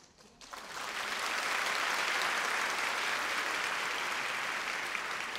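Audience applauding. The clapping starts about half a second in and quickly builds to a steady level.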